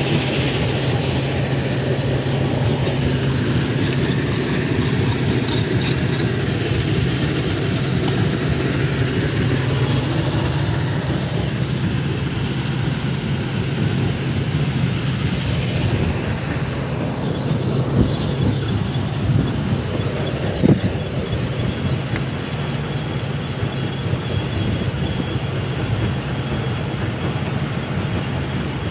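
Steady low drone of heavy machinery running on site, with a couple of sharp knocks about two-thirds of the way through.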